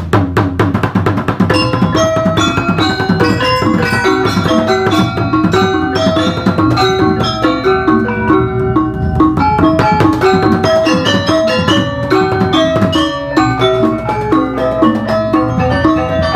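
Background music: a Balinese baleganjur gamelan piece, produced in FL Studio, with rapid metallic mallet strikes over a steady drum beat.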